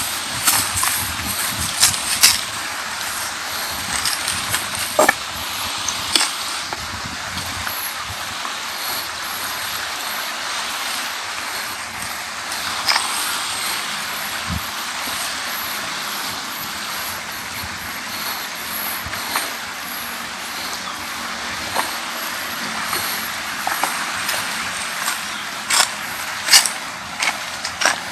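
Beach ambience: a steady wash of sea waves and breeze, with a few sharp clicks near the start and again near the end.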